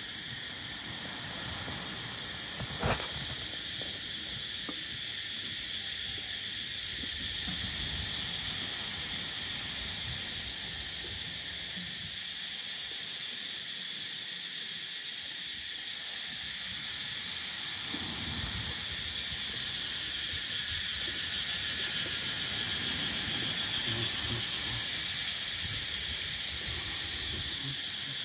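Steady chorus of tropical insects, a dense high-pitched buzz in several layers that holds throughout, with one short sharp click about three seconds in.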